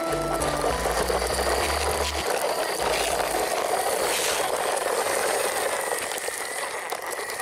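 Plastic toy truck wheels rolling over gravelly dirt, a steady gritty rattle. Background music fades out about two seconds in.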